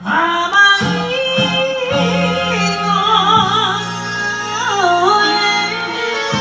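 A woman singing enka into a microphone, holding long notes with wide, wavering vibrato over a karaoke backing track. The music comes in suddenly at the beginning after a fade.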